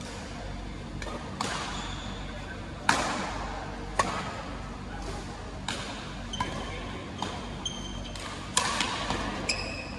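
Badminton rally in an echoing hall: rackets strike the shuttlecock about ten times in quick exchanges, the loudest hits near three and four seconds in. Short high squeaks of court shoes come in the second half.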